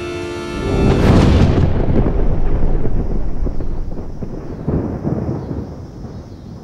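A loud thunderclap breaks in under a held music chord about a second in and rolls on as a long rumble that slowly dies away, with a smaller swell about two thirds of the way through.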